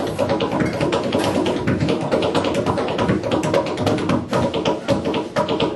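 Tap shoes striking a wooden stage in a fast, dense, unbroken run of taps, with music underneath.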